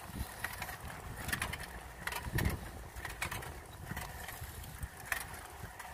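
Bicycle rolling over sidewalk paving: a low rumble with scattered clicks and rattles from the bike, and a thump about two and a half seconds in.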